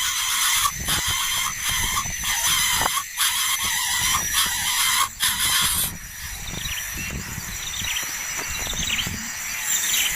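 Nestling birds giving harsh, raspy begging calls in a near-continuous stream with short breaks. About six seconds in the calls stop, and softer, short down-sweeping chirps follow.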